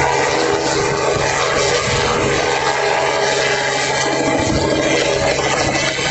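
Radio-controlled scale Robinson R44 model helicopter flying, its motor and rotors running with a steady hum that holds one pitch.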